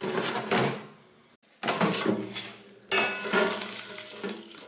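Metal tongs and the Dreo ChefMaker air fryer's drawer and rack clattering as the cooked shrimp are handled and tipped out, in three separate bursts, each fading away.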